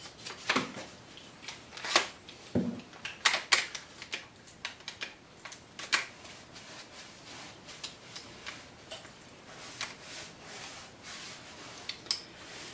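Scattered, irregular sharp clicks and knocks from a spreader/clamp being worked and tested under load.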